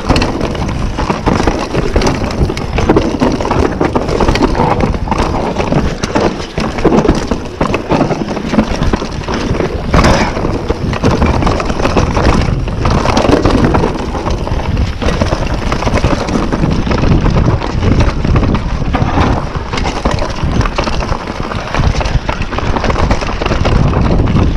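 YT Capra enduro mountain bike ridden fast down a rough dirt forest trail, heard from the handlebars: tyres running over dirt and roots, with the bike rattling and knocking over bumps. There is a harder knock about ten seconds in.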